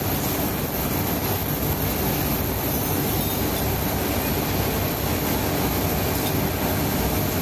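Automatic cutlery cleaning and drying machine running: a steady, even machine noise from its drying blowers and conveyor, with a low hum underneath.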